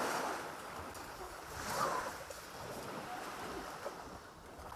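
Sea waves washing onto the shore, a surge swelling and easing, with another surge about two seconds in.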